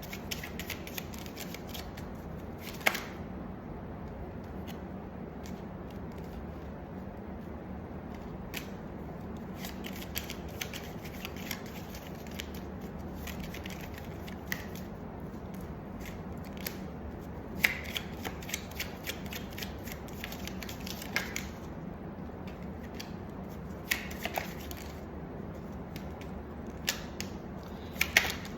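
Tarot cards being shuffled and handled: scattered sharp clicks and short bursts of quick flicking, with the strongest snaps about 3, 17, 24 and 28 seconds in. A steady low hum runs underneath.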